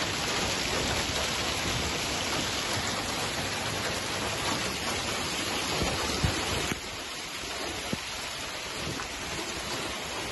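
Heavy hailstorm: hail and rain pouring down onto a street and parked cars, a dense steady hiss with a few sharper knocks. It drops to a softer level about seven seconds in.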